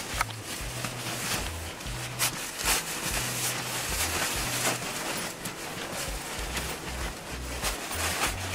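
Stiff Oxford tent fabric rustling and swishing in irregular bursts as a folded umbrella ice-fishing tent is pulled into its fabric carrying case.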